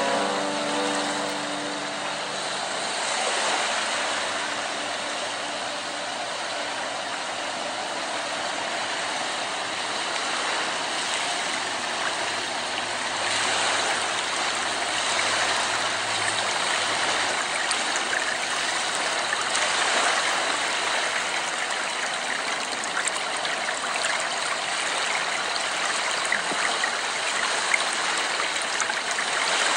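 A steady rushing noise like running water, with the last notes of a music track dying away in the first couple of seconds.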